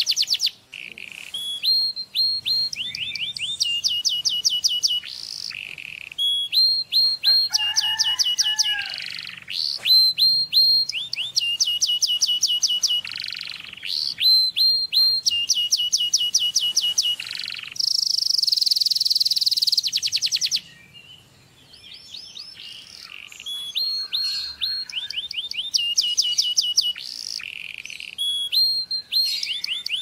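Domestic canary singing: phrase after phrase of rapid repeated trills and down-slurred whistled notes, high-pitched, with a short quieter gap a little past the middle.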